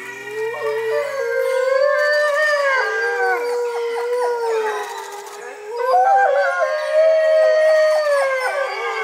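Mexican gray wolves howling together: several long howls overlap at different pitches, easing off briefly a little past halfway and then swelling again.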